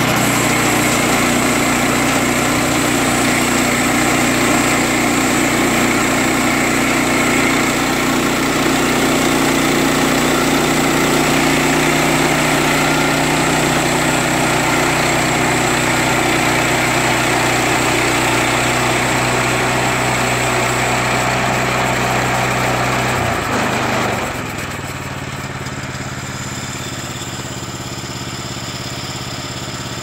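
Woodland Mills portable band sawmill running at full speed, its gas engine driving the band blade while the sawhead is pushed through a log. About 24 seconds in the engine note falls and it settles to a quieter idle as the cut ends.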